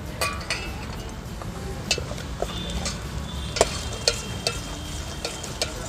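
Onions and ginger-garlic paste frying in oil in a pan, stirred with a utensil that clicks and scrapes against the pan many times.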